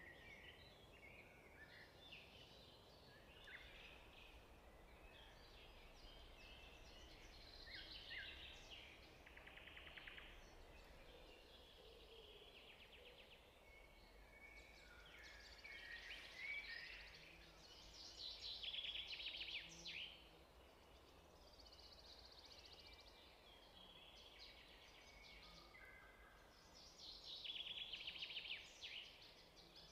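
Faint birdsong: several birds chirping and trilling. The trills are louder in stretches about halfway through and again near the end.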